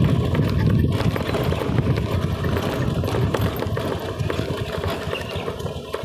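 Honda Activa scooter's single-cylinder four-stroke engine running, steady with a slight drop in level near the end.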